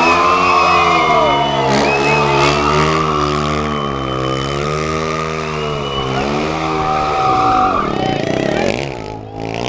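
Stunt motorcycle engine revved up and down over and over, its pitch swinging about once a second as the throttle is worked, with high tyre squeals over it. The engine note falls away near the end.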